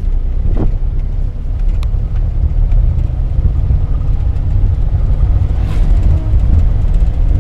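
Steady low rumble of a 1984 Daihatsu Hijet 1000's engine and road noise, heard inside the cab while driving.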